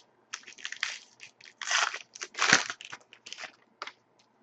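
A foil trading-card pack wrapper crinkling and tearing as a pack of hockey cards is opened: a string of uneven crackly rustles.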